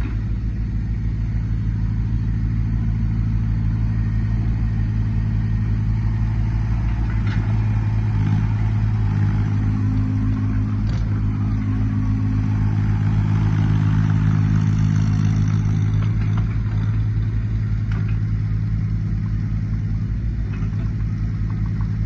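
JCB micro excavator's small diesel engine running steadily, working harder and getting louder in the middle as the machine tracks and slews, with a few short clanks.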